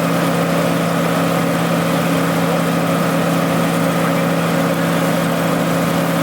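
An engine running steadily: an even, unchanging drone with a strong low hum.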